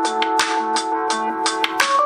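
A Samsung Galaxy S21 Ultra ringtone playing: a tune of held, changing notes over a brisk beat of sharp percussion hits.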